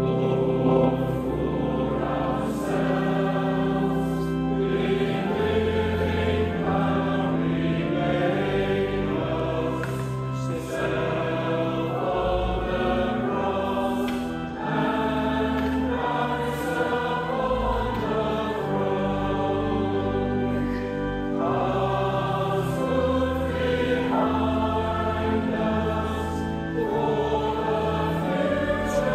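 A choir singing church music, with steady held low notes underneath.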